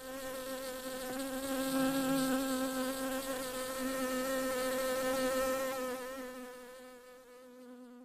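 A bee buzzing: one continuous hum whose pitch wavers slightly. It is loudest in the first couple of seconds and fades away over the last few seconds.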